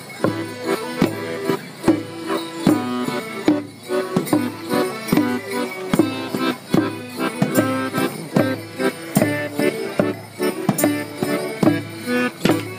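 Traditional folk tune played live for a morris dance, with sharp clacks of wooden dance sticks striking together on the beat, about two a second.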